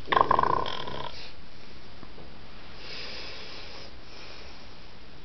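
A sleeping man snoring: one loud, rattling, bark-like snort in the first second, then two quieter, breathy exhales.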